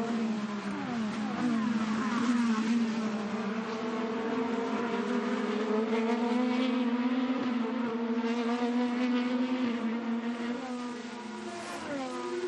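IndyCar's twin-turbo V6 racing engine held at speed, its pitch creeping up. It drops through the gears in falling steps about a second in and again near the end.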